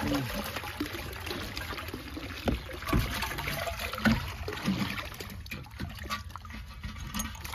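Water trickling and dribbling out of an upended freon cylinder used as a fish trap as it is tipped over a plastic crate, with a few knocks as the cylinder is handled.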